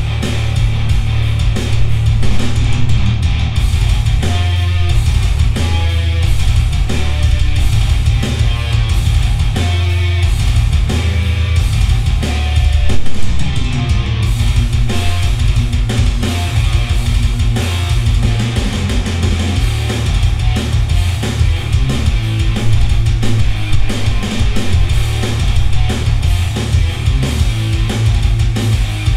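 Rock music with electric guitar, drums and heavy bass, played through a Polk Audio 7.2 surround sound system in All Channel Stereo mode and recorded by a microphone in the room.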